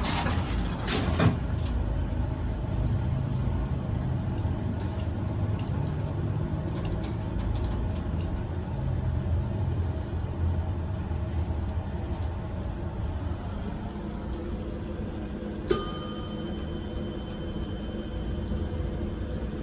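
Heights glass hydraulic elevator running: a steady low hum and rumble. About three-quarters of the way through, a sharp click is followed by a ringing tone held for several seconds.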